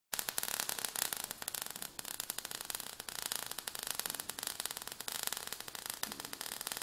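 Faint crackling static: a low hiss peppered with many small, irregular clicks.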